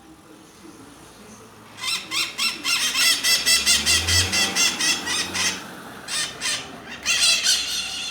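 Maritacas (small parrots) calling: after a quieter start, a long run of rapid, harsh, high squawks about five a second, a short break, then another burst near the end.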